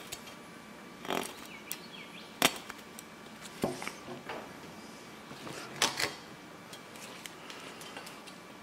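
Machete blade carving a wooden stick: several short, sharp cuts and clicks as the edge bites into and slices through the wood. The loudest come about two and a half seconds in and twice in quick succession around six seconds.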